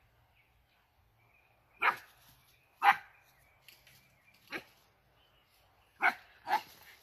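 An American pit bull terrier barking: five sharp single barks, starting about two seconds in and coming irregularly, with the last two in quick succession near the end.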